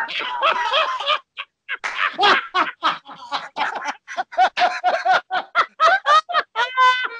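Two men laughing hard and uncontrollably, in loud rapid bursts of cackling laughter that break out suddenly at the start.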